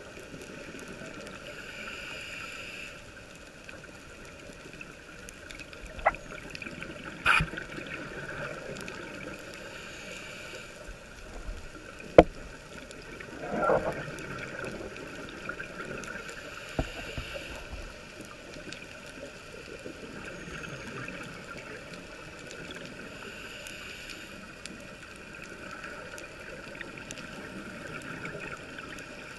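Underwater ambience of a scuba dive: a diver's regulator breathing in a slow cycle, a hiss swelling about every seven seconds and a gurgling rush of exhaled bubbles about halfway through. A few sharp clicks stand out, the loudest a little before the bubbles.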